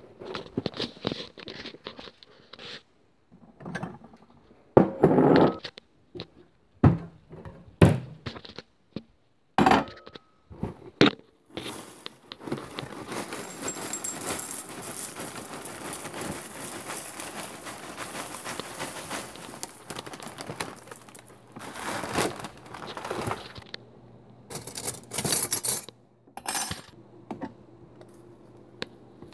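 Knocks and clunks of handling, then cereal flakes poured from a plastic bag into a bowl: a long, steady rustling pour lasting about twelve seconds, followed by a few louder rustles of the bag.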